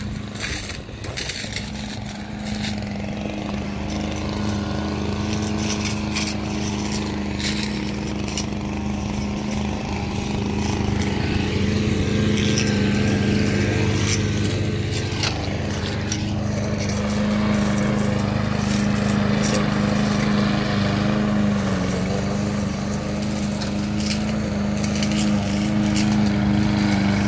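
Small petrol engines running steadily as grass is mowed: a walk-behind lawn mower and brush cutters. It gets louder as the mower comes close near the end.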